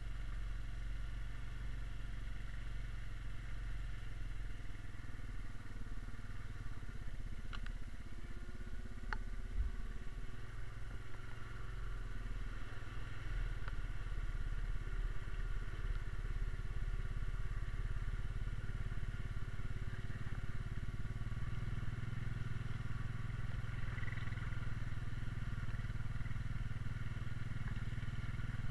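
Honda Rubicon 520 ATV's single-cylinder engine running steadily while the quad wades through a creek, with a couple of sharp clicks about seven and nine seconds in.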